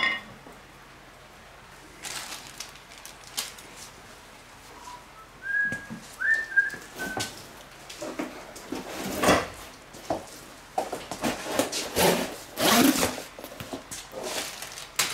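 Scattered knocks, scrapes and shuffles of steel steering parts being handled and of footsteps on a concrete floor, loudest in the second half. A few short, faint whistle-like notes come around the middle.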